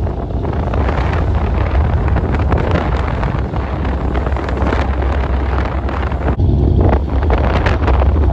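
Wind buffeting the microphone on a boat under way, over a steady low rumble from the boat's motor, with irregular gusts throughout.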